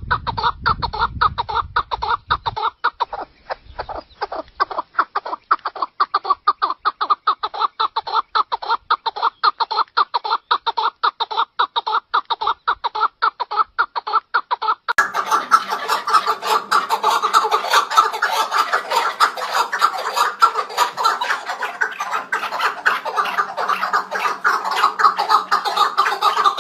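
Chukar partridge calling: a fast, steady run of repeated clucking notes, several a second. About halfway through, a different recording cuts in, with denser, overlapping calling.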